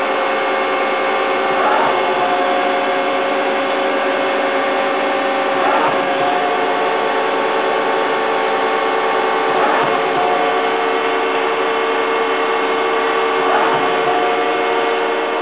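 1986 Okuma & Howa NC4PS CNC lathe running in cycle, its spindle turning the 10-inch Kitagawa chuck with a steady, quiet whine of several tones. A brief swell comes about every four seconds, each time with a slight shift in pitch.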